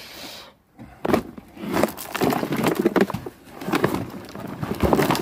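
Dug soil and clods of earth tipped from a flexible plastic tub into a metal wheelbarrow. From about a second in there is an irregular run of crumbly crunching and dull knocks.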